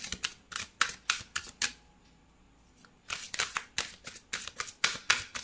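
A deck of oracle cards being shuffled by hand: quick, sharp card clicks in two runs, with a pause of about a second in the middle.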